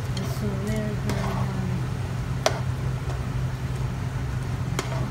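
Spatula stirring curry in a pan, knocking sharply against the pan twice, about two and a half seconds in and near the end, over a steady low hum.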